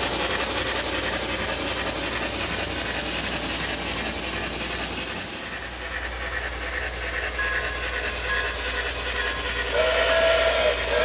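Steam locomotive running, with a steam whistle starting to blow near the end as a steady tone with a short break.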